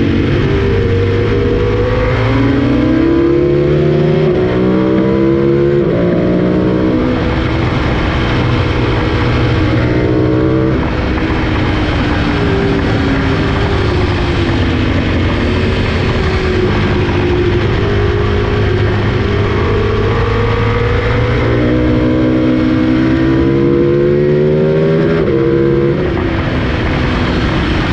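Sport motorcycle engine at track pace, revving up through the gears with quick upshifts where the pitch climbs and drops back. It eases off around ten seconds in, then pulls hard again, with more shifts near the end. Heavy wind rush is on the microphone throughout.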